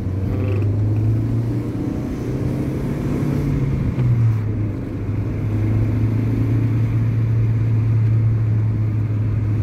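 Car engine running under way, heard from inside the cabin: a low steady hum that steps up and down in pitch a few times as the revs change, then holds steady for the last five seconds.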